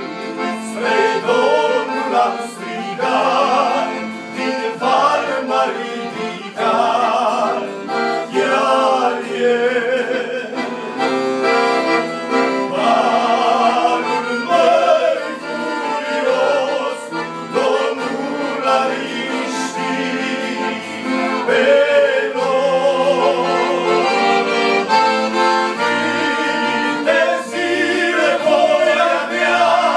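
Two men singing a church song to accordion accompaniment, the accordion holding steady chords under the voices.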